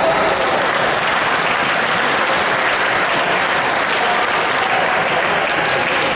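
Spectators applauding steadily, with no rise or fall in level.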